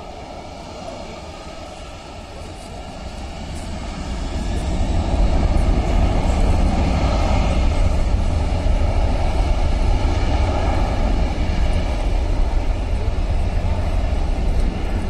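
Jet engines of a FedEx wide-body cargo jet on the runway. A distant jet rumble swells about four seconds in as the engines come up to takeoff power, then holds loud and steady.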